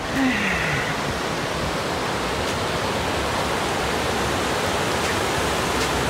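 Small waterfalls and rapids cascading over rock ledges: a steady rush of water.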